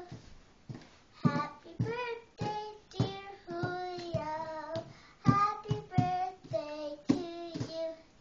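A young girl singing a song alone in sustained notes, phrase by phrase, with a thump from her hands drumming on the bench at the start of many notes.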